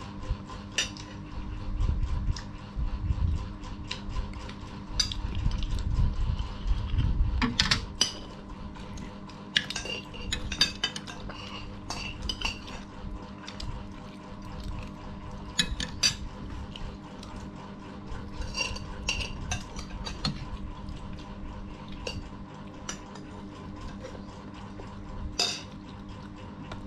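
Metal spoons and forks clinking and scraping against plates, a bowl and a serving dish during a meal: scattered light clinks. A low rumble runs under them for the first several seconds.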